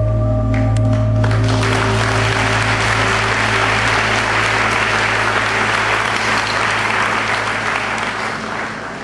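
Audience applause breaks out about a second in and keeps going for several seconds before fading near the end, over slow background music with sustained tones.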